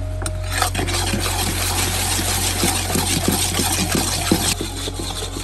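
A hot brown seasoning sauce sizzles and bubbles in a steel pot while a metal ladle stirs it and scrapes the pot. The sizzle cuts off abruptly about four and a half seconds in.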